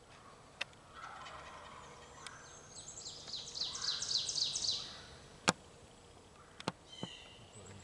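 Wild turkey gobbler gobbling: one fast rattling series lasting under two seconds, about halfway through. A few sharp clicks come before and after it.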